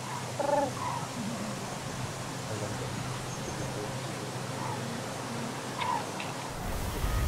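A few scattered calls from a passing flock of migrating common cranes, over a steady low hum. A low rumble comes in near the end.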